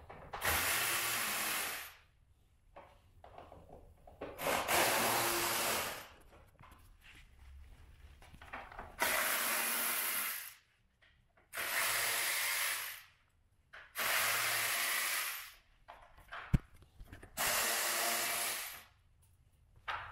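Power drill/driver running in six short bursts of about a second and a half each, backing out the Torx bolts that hold the Can-Am X3's hood. A single sharp click comes near the end.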